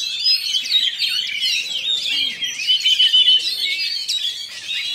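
Oriental magpie-robin (kacer) singing a continuous, fast stream of varied whistles and chirps, with a quick run of short repeated notes near the middle.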